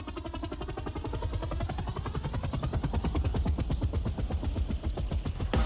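Background music build-up: a fast, even drum roll growing steadily louder under a sweeping riser, with the full beat coming in near the end.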